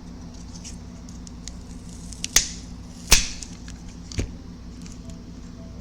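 Three sharp clicks of small parts or tools being handled on a repair bench, roughly a second apart, over a steady electrical hum.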